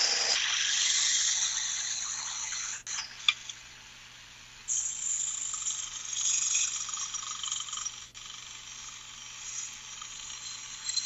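Small 1x30 belt sander running with a steel knife blade held against the belt: a high grinding hiss over the motor's steady hum, coming and going in passes, with a short break a few seconds in and a sharp click just before it. The blade is being ground back to a new point where its tip had broken off.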